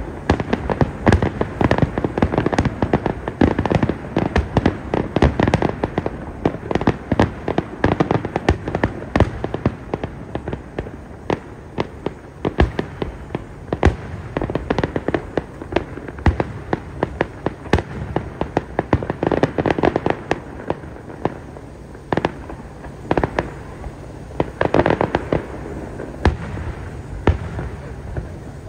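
Aerial fireworks display: a dense, continuous run of bangs and crackling shell bursts, thinning out somewhat in the middle and building again near the end.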